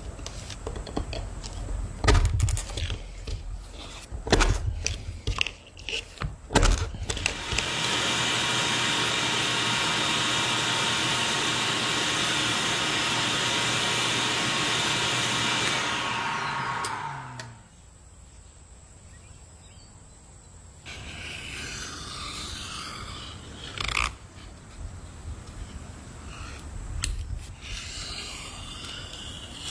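Knocks and taps of hand tools being handled, then a small electric motor tool runs steadily for about nine seconds and spins down, its pitch falling as it stops. Soft rubbing follows near the end.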